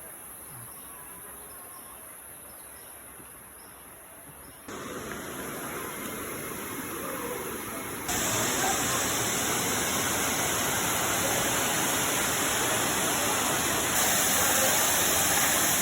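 Insects trilling steadily in the forest, then the steady rush of a waterfall coming in suddenly and growing louder in abrupt steps, about a third of the way in and again about halfway in.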